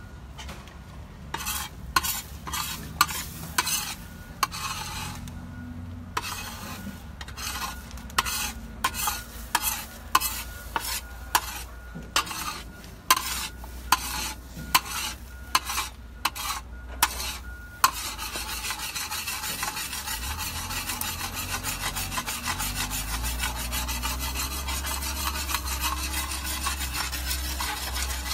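A spatula scraping and stirring food in a pan on a propane gas cooker, in irregular strokes, then from about two-thirds of the way in a steady sizzle of food frying.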